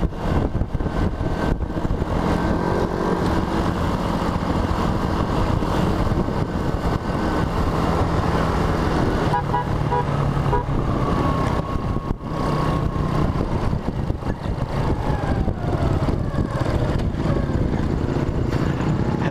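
Motorcycle engine running at road speed under heavy wind noise on the camera's microphone. A brief run of high beeps comes about ten seconds in.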